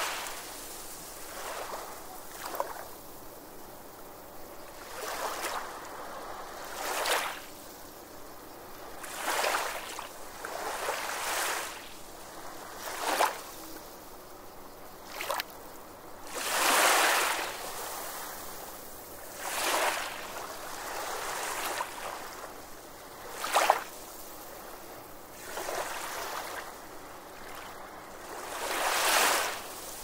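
Sea waves washing onto the shore, one swell every two to three seconds, some ending in a sharp splash.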